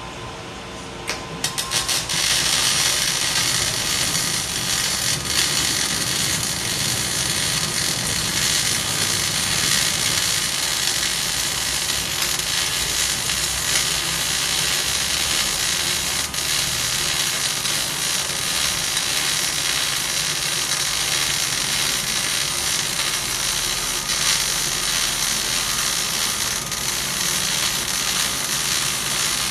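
MIG welding arc striking with a few short sputters about a second in, then crackling and sizzling steadily as a fillet weld is run.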